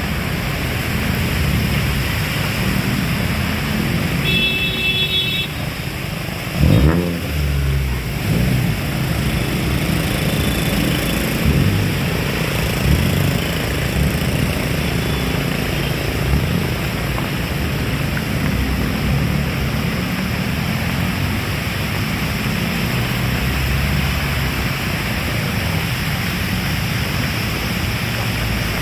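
Heavy rain falling steadily, with a low rumble underneath. About seven seconds in, a sudden loud low sound with a quick falling pitch.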